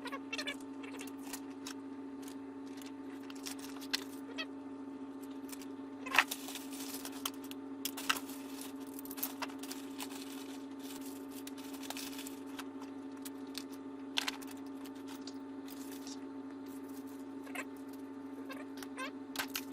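Packaging being handled while parts are unpacked from a cardboard box: scattered clicks, knocks and short rustling scrapes of plastic and cardboard, over a steady low hum.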